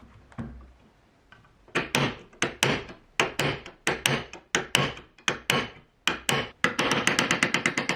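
Hammer blows, two or three a second, starting about two seconds in, then quickening into a fast run of rapid ringing taps near the end.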